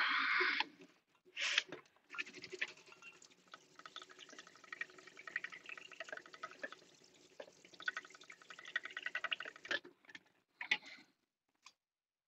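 Water from a hand-held sink sprayer on a coiled hose spattering on a wooden cutting board as it is rinsed, after a short hiss at the start; the spattering stops about ten seconds in.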